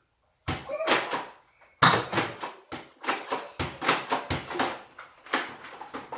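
Nerf blasters firing foam darts and the darts hitting and bouncing off kitchen surfaces: a rapid, irregular run of sharp pops and knocks, about two to three a second.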